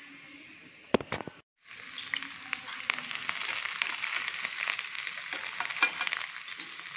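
Tadka for dal: whole spices and chopped aromatics sizzling in very hot oil in a steel pan over a high gas flame, stirred with a wooden spatula. A knock about a second in and a brief drop-out, then the sizzling is louder, with many sharp pops.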